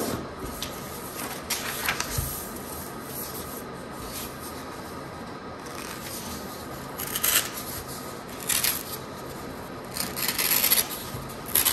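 A sheet of paper being folded and creased by hand on a tabletop: short rustling, rubbing strokes as fingers press and run along the folds, with a longer run of rustling near the end.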